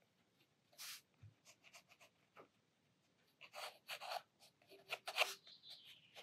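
Sakura Pigma Micron fine-liner pen scratching faintly on watercolour paper in short strokes: one about a second in, then a run of quick strokes in the second half as details are inked in.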